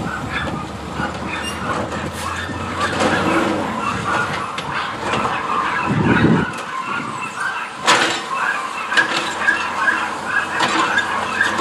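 Automated side-loader garbage truck's hydraulic arm tipping a wheeled polybin and lowering it back to the curb, with a diesel engine running under mechanical squealing. A loud clank comes about eight seconds in, followed by a run of short high squeaks.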